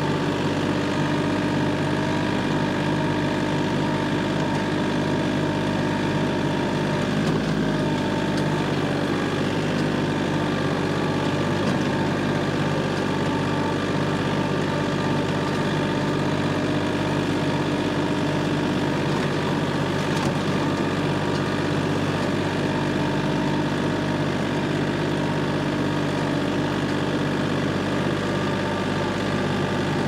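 An engine running steadily at an even speed, with no change in pitch or load.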